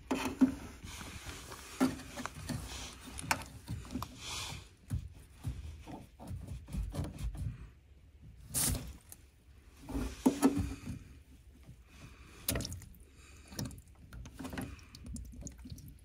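Hands working the plastic water-filter (Y-strainer) housing and shut-off valve of a heat pump to pull the filter out: irregular clicks, knocks and scrapes of plastic parts being gripped and twisted.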